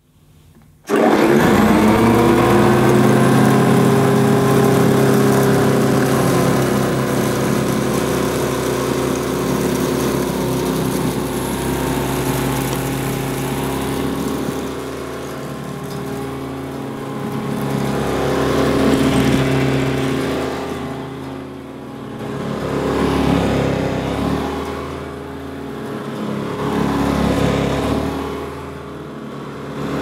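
Vintage Hoover 612 upright vacuum cleaner switched on about a second in, its motor rising in pitch as it spins up and then running steadily. In the second half its sound swells and fades every few seconds as it is pushed back and forth over the carpet.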